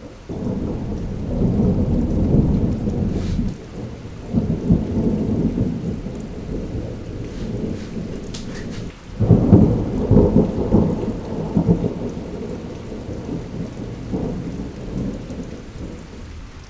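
Thunder rolling in long low rumbles, with a sharp loud peal about nine and a half seconds in that then fades away. Rain falls steadily underneath.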